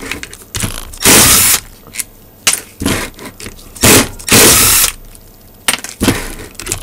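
Red cordless power driver with a socket extension undoing housing bolts, running in short bursts of about half a second, several in a row with pauses between.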